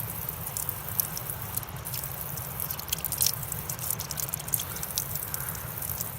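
Water flowing and dripping steadily, with many small sharp ticks of drops landing throughout.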